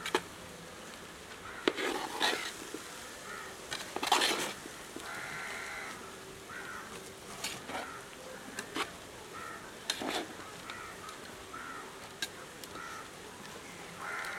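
Shredded raw jackfruit being tossed and mixed by hand in a large metal pot: rustling with sharp knocks against the pot, the loudest about four seconds in. Crows caw repeatedly in the background.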